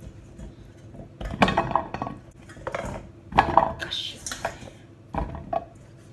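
Kitchen utensils and dishes clattering in four short bursts, metal and crockery knocking together as food is handled in a pan.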